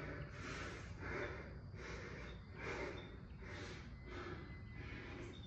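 A man breathing hard and fast, in and out about one and a half times a second, as he catches his breath after intense exercise.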